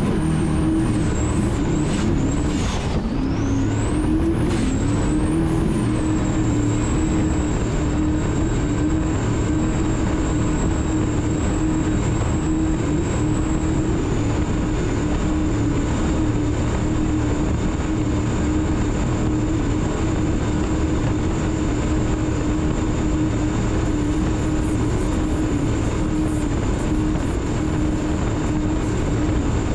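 Turbocharged engines of an Outer Limits performance powerboat running at speed: a steady drone with a high whine, over the rush of wind and water. A few seconds in, the pitch dips and climbs back, then holds steady.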